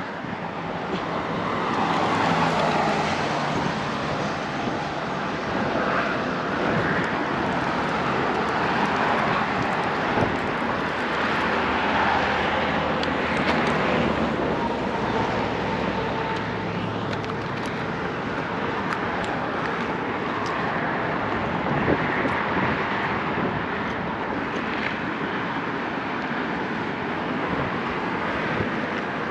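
Steady outdoor rush of wind and vehicle noise, swelling and easing every few seconds, with no single event standing out.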